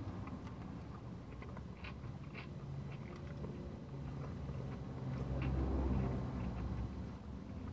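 A person biting into and chewing a buffalo chicken sandwich with crisp jalapeños, with a few short crunches now and then. Under it runs a low steady hum that swells to its loudest about five seconds in.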